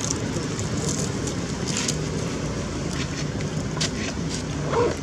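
Steady outdoor background noise with a low rumble, a few light clicks, and one short rising squeak near the end.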